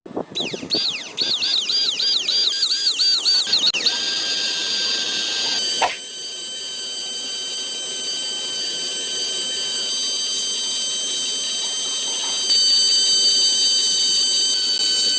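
A high-pitched whine that warbles up and down about four times a second for the first few seconds, then holds a steady pitch and gets louder near the end.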